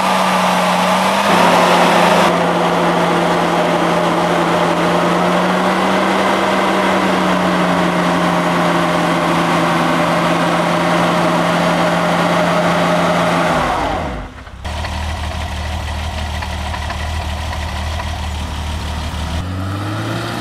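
BMW E30 325i Touring's 2.5-litre straight-six held at high, steady revs while the rear wheel spins in a burnout, with a hiss of tyre noise over the engine. After an abrupt cut about fourteen seconds in, the engine runs at lower revs and rises again near the end.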